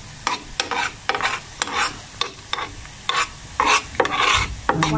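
A spoon stirring and scraping through coconut curds frying in bubbling coconut oil in a metal pan, about two strokes a second over a steady sizzle. This is latik being made: coconut milk cooked down until the curds separate from the oil and brown.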